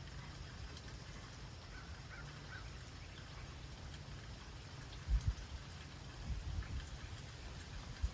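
Summer rain falling, with scattered drops ticking over a steady low rumble. A few heavy low thumps come about five seconds in and again around six and a half seconds.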